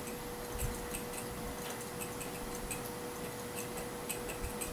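Dead air in a broadcast: a faint steady hum with scattered faint, irregular ticks.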